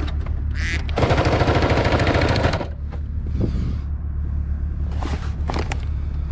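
Singer 4411 Heavy Duty sewing machine running fast in one burst of about a second and a half, a rapid even rattle, as it drives a zigzag stitch through four layers of heavy sailcloth, a load at which it keeps breaking thread or sewing sloppy, missed stitches. Sailcloth rustles after it stops, over a steady low hum.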